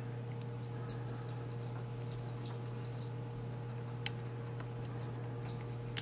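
Faint clicks and ticks of a hook pick working the pin stack and warding of an Evva DPI cylinder lock under tension, a few scattered taps with the sharpest near the end. A steady low hum runs underneath.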